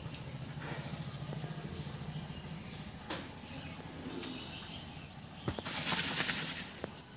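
Dry paddy grains rustling and pattering as a hand drops them into a leaf cup on a woven bamboo mat, with a few light clicks and a louder trickling rattle for about a second near the end. A low steady hum runs underneath.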